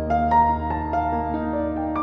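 Background music: a slow, gentle keyboard melody of single notes over a held low bass.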